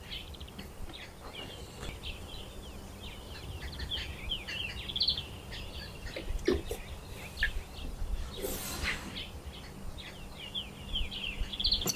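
Small birds chirping and twittering in quick, repeated short calls over a low outdoor rumble, with an occasional soft knock or rustle.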